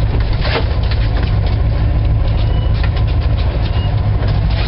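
Fishing boat's engine running steadily at trolling speed, a low rumble with wind and choppy-water noise over it.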